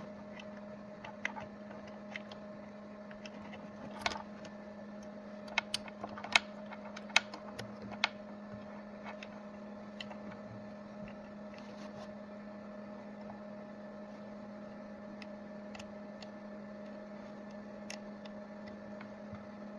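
Steady electrical hum with a scatter of small clicks and taps during the first eight seconds or so, as a charging cable is handled and plugged into the earbuds.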